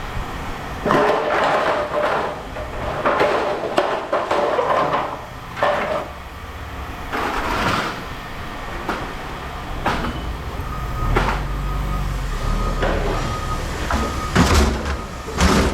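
Pieces of scrap metal clanging as they are tossed and dropped, in a run of separate ringing knocks. Over the second half a vehicle engine runs with a repeated high beep, and a loud clang comes near the end.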